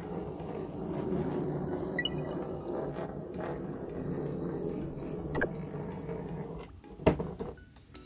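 A battery-and-neodymium-magnet coil train running inside a thick copper-wire coil, rattling and rumbling against the turns of wire as it goes round. There are a few sharp clicks as hands handle the copper coil.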